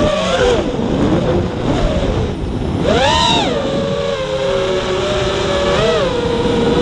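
Radio-controlled model airplane's motor heard from the onboard camera, its pitch surging up sharply about three seconds in, falling back and then holding steady, over a constant rush of wind past the airframe.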